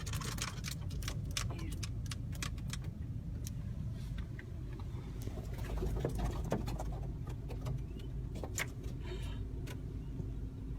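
Low steady rumble of a car running, heard from inside the cabin, with many short sharp clicks and ticks scattered through it.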